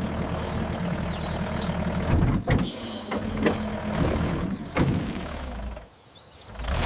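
Tractor engine running with a steady low hum, with several sharp knocks or clanks in the middle. It cuts out for a moment near the end and then starts again.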